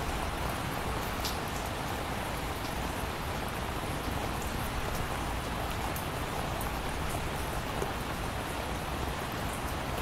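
Steady rain sound effect: an even, unbroken hiss of heavy rainfall.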